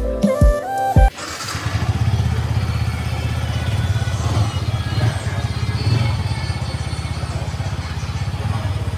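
Background music for about the first second, then a Yamaha R15 V4's 155 cc single-cylinder engine starts and runs at a steady idle.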